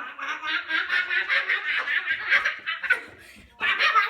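A person laughing hard in rapid, high-pitched bursts, breaking off briefly about three seconds in and then laughing again.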